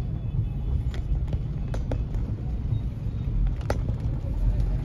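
Low, steady rumble of slow road traffic heard from inside a car, with a few short clicks or knocks scattered through it.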